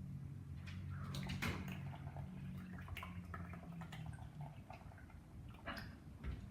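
Elmer's magical liquid slime activator being poured into glue and stirred with a spoon in a bowl: scattered small clicks and wet drips.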